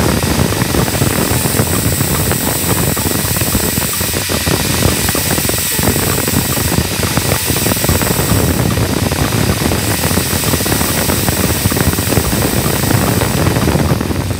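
Angle grinder with an abrasive disc running steadily at full speed, a loud, even machine noise.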